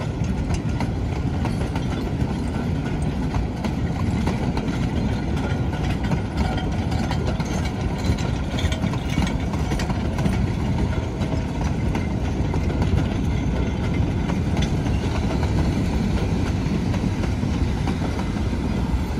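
Narrow-gauge wooden freight cars rolling past on the track, a steady rumble with a continual rattle and clicking of wheels and car bodies.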